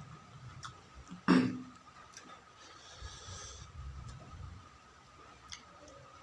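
A person eating close to the microphone: chewing and mouth sounds, with one sudden loud sound a little over a second in and a breathy hiss at about three seconds.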